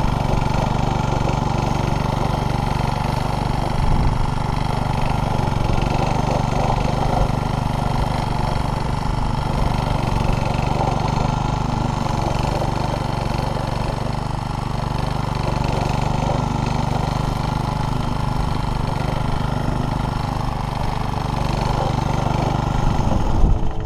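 Old Briggs & Stratton engine on a 1970s Bob Andrews wheeled string trimmer running steadily under load as its line cuts through long, thick, wet grass, running again after its points and condenser were converted to electronic ignition.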